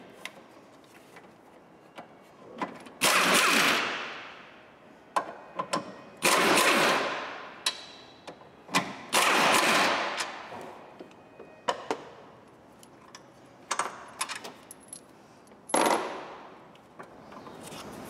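Air impact wrench hammering engine-mount bolts loose in four bursts of a second or two each, with metallic clicks and clinks of socket and bolts in between.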